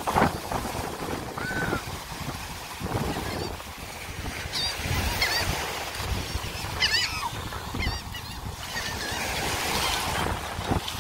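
Seabirds calling in short, scattered cries, most of them in the middle stretch, over the steady rush of surf and wind on the microphone.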